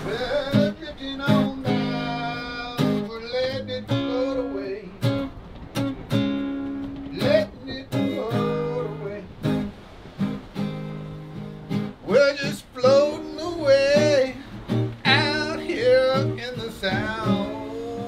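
A song on strummed acoustic guitar with a singing voice over it.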